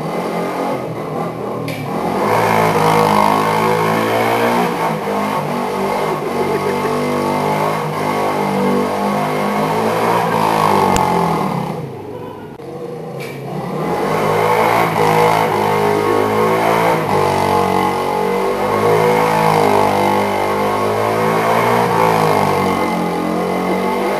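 Small 50cc Redcat quad's engine revving as it is ridden, its note rising and falling with the throttle. It drops off briefly about halfway through, then revs up again.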